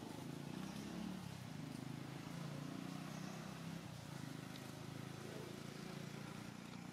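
An engine running with a steady low hum.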